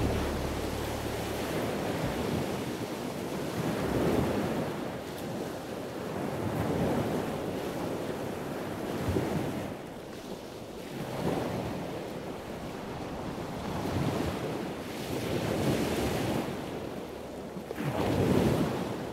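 Sea waves washing in, the noise swelling and fading every two to three seconds, with wind.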